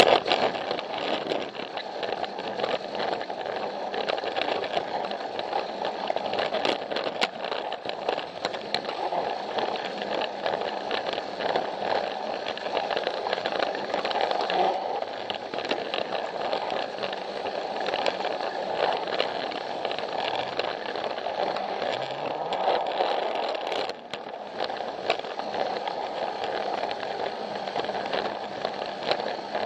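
Plarail battery-powered toy train running along plastic track: a steady motor whir and wheel rumble, with small irregular clicks as the wheels cross the track joints. The level dips briefly about three-quarters of the way through.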